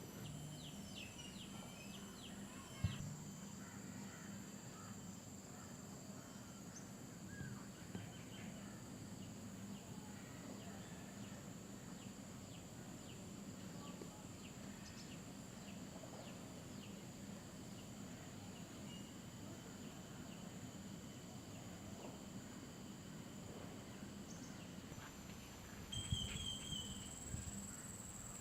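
Outdoor tropical ambience: a steady high-pitched insect drone with scattered short chirps. There is a single sharp knock about three seconds in, and a brief burst of clattering near the end.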